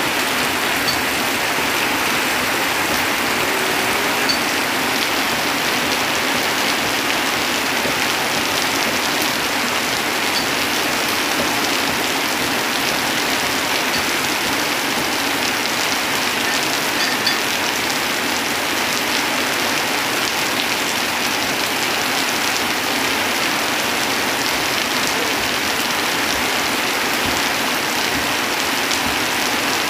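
Heavy rain falling steadily on a tin roof and on leafy trees, with water pouring off the roof edge.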